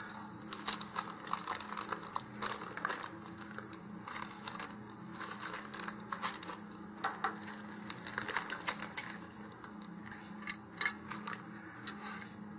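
Plastic parts bag crinkling and rustling as it is slit open with a hobby knife and red plastic rocket parts are taken out, with scattered light clicks and taps. A faint steady hum runs underneath.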